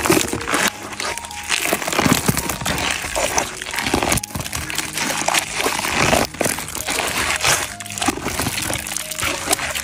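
A wet lump of freshly coagulated rubber latex squeezed and kneaded in gloved hands, giving a continuous irregular squelching and crackling, with faint music beneath.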